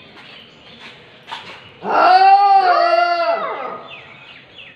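Puppy whining for food: two long, pitched cries run together, each rising then falling in pitch, starting about two seconds in.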